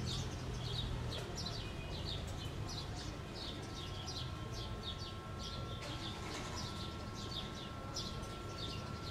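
Small birds chirping, a dense run of short high chirps several times a second, over a low outdoor rumble. A faint steady high tone joins about a third of the way in.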